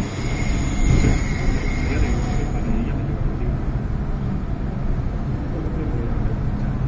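MTR M-Train running, heard from inside the carriage: a steady low rumble, with a high whine over it for the first two and a half seconds that then stops.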